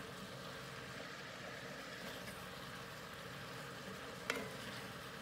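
Mixed vegetables sizzling steadily in a cast-iron skillet with a splash of added water, being stirred with a wooden spatula; one sharp knock of the spatula against the pan about four seconds in.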